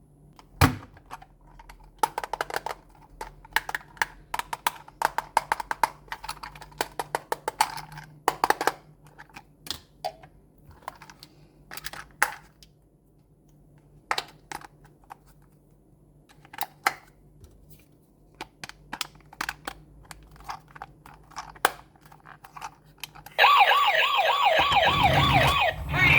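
Irregular light plastic clicks and taps as a toy is handled, then about 23 seconds in a toy police car's electronic siren switches on and warbles loudly.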